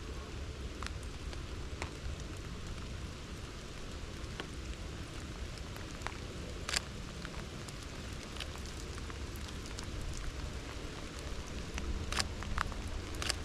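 Steady rain falling, with scattered sharp ticks of single drops striking close by. The loudest tick comes about halfway through and two more come near the end.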